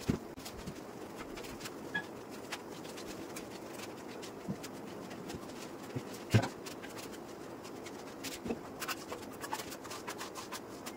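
Light scraping and tapping of a hand trowel against a plastic stencil sheet on a wall, with a single knock about six seconds in and a run of quick scrapes near the end.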